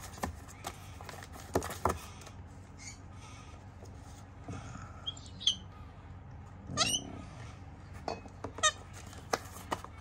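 Triton sulphur-crested cockatoo chick, about two weeks old, making short squeaky begging calls while being hand-fed formula from a syringe, with a longer wavering call about seven seconds in.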